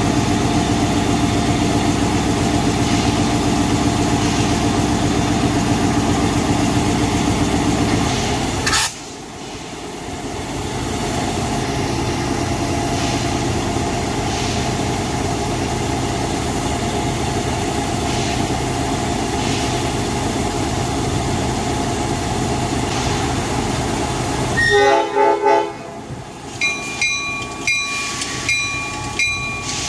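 Diesel switcher locomotive idling steadily. Near the end it gives a short, broken horn blast, then its bell rings about once a second.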